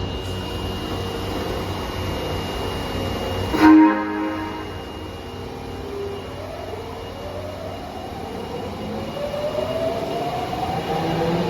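Subway train at an underground platform sounds one short horn blast about four seconds in, then pulls away with its traction inverter whining in several tones that climb steadily in pitch as it accelerates.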